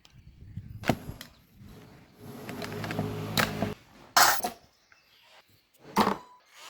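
Sharp clicks and knocks of small parts being handled, with a small motor whirring steadily for about a second and a half in the middle.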